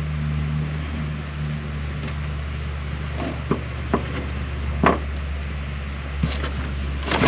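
A steady low hum runs throughout, with a few sharp clicks and knocks between about three and six seconds in, as a part is handled and worked into place by hand.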